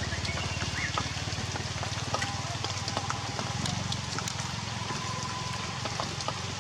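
Heavy rain falling steadily, with a low steady hum underneath.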